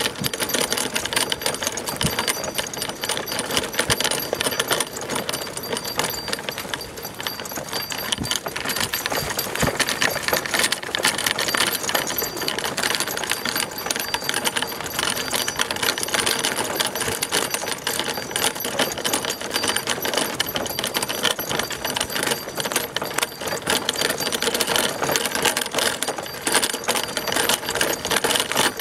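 Single-dog Sacco cart rattling steadily as it rolls along a dirt trail, a dense, fast clatter from its metal frame and wheels.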